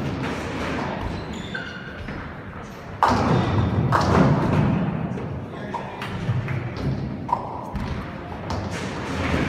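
Ninepin bowling: a heavy thud about three seconds in, then the steady low rumble of balls rolling down the lanes, with sharp knocks of balls and pins over it.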